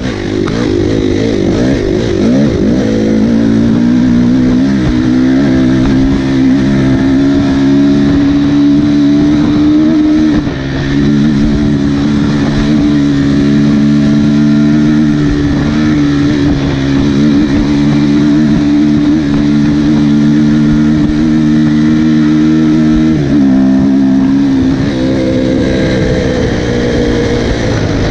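Dirt bike engine under way at speed, revving up at first and then holding a steady high pitch, with a brief dip in revs about ten seconds in and a drop in revs followed by a climb again near the end.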